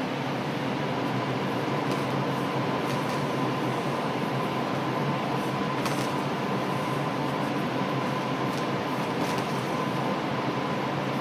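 Steady mechanical hum and hiss with a faint high steady tone, like a kitchen's ventilation running. A few faint light clicks of a spatula against a stainless steel bowl as macaron batter is folded.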